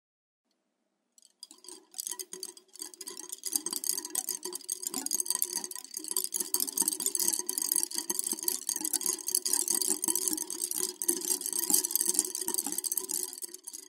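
A bundle of wooden sticks clattering together in a dense, rapid rattle of small knocks. It starts about a second in, grows louder over the next couple of seconds, and cuts off right at the end.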